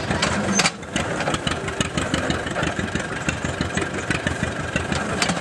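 Belt-driven antique John Deere stationary hay press running under load, its mechanism clattering and knocking rapidly over the steady chugging of the engine that drives the belt.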